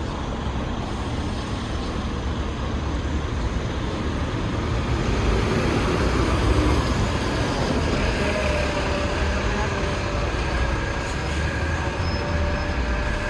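Alexander Dennis Enviro500 MMC double-decker bus running, its Cummins L9E diesel engine giving a steady rumble under road noise that gets a little louder about five seconds in. From about eight seconds in, thin steady whines sound over the rumble.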